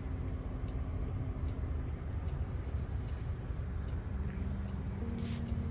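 Steady low rumble of cabin noise inside a Waymo electric robotaxi, with a few faint ticks.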